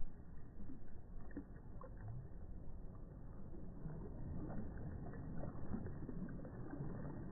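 Small waves washing and lapping close by in a soft, steady wash, with many little splashes scattered through it.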